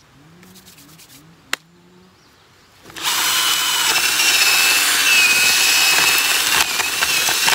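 Hand drill with a garden auger bit boring a planting hole through landscape fabric into soil, starting about three seconds in: a steady motor whine over loud grinding and scraping, the bit running into rocks. A single sharp click comes before the drilling starts.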